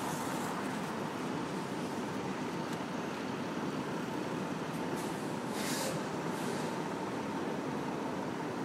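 City street traffic ambience: a steady wash of passing vehicle noise, with a short high hiss a little past the middle.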